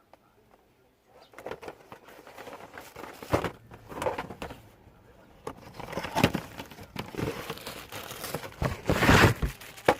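Irregular crinkling and rustling with small knocks, starting about a second in and loudest near the end: a cabin air filter and its packaging being handled while the filter is swapped.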